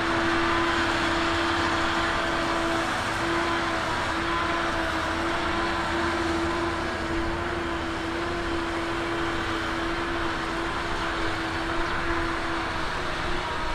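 Diesel engine of heavy earthmoving equipment running steadily, with a constant whine over the engine noise.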